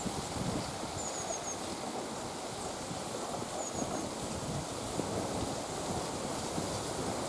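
Wind rushing over open ice and buffeting the microphone, a steady noise. Two short runs of faint, quick high chirps come through, about a second in and again around the middle.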